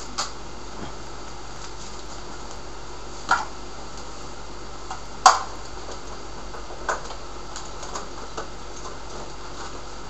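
A handful of light, scattered clicks and knocks from computer parts and cables being handled, the loudest about five seconds in, over a steady hiss.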